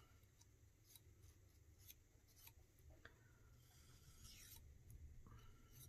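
Near silence with faint scratching as a marker is drawn around the edges of a cardstock label.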